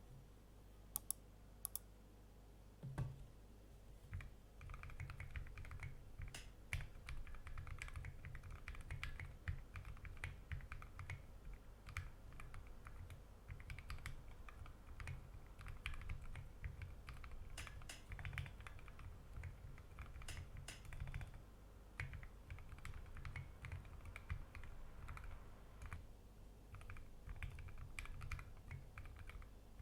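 Typing on a custom 60% mechanical keyboard with lubed Gateron Ink Black v2 linear switches, an aluminium plate and SA-profile keycaps: a few separate key clicks and a thump, then a steady rapid run of keystrokes from about four seconds in, with short pauses.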